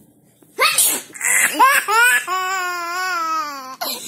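Baby laughing hysterically in high-pitched squeals, starting just after a short sharp burst about half a second in and ending in one long drawn-out squealing laugh.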